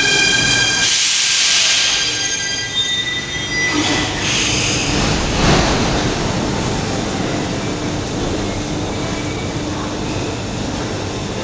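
Underground metro train pulling into the platform and braking to a stop: a high brake squeal for the first couple of seconds, a brief hiss about five seconds in, then the steady hum of the standing train.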